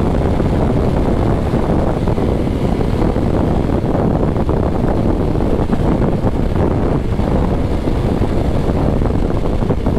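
Loud, steady wind rush buffeting the microphone of a sport motorcycle riding at highway speed, with the bike's running and road noise underneath.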